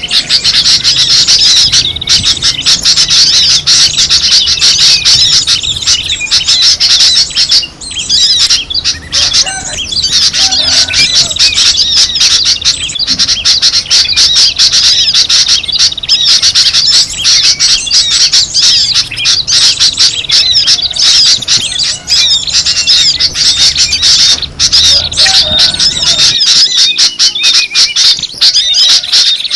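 Dense chorus of many small songbirds calling at once, rapid overlapping chirps with no pause, a bird-lure (pikat) recording used to draw in wild songbirds.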